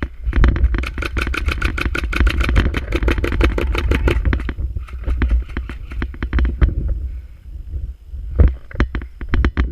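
Airsoft gunfire: rapid runs of sharp cracks in long bursts that stop about four and a half seconds in, then scattered shots and another burst near the end, over a steady low rumble.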